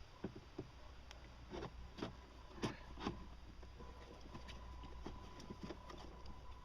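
Irregular light clicks and knocks of parts and bolts being handled and fitted into a personal watercraft's tight compartment, a few sharper ones in the first three seconds and smaller taps after, over a faint steady hum.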